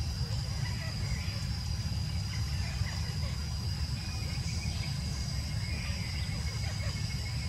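Steady high-pitched insect drone over a constant low rumble, with faint scattered chirps.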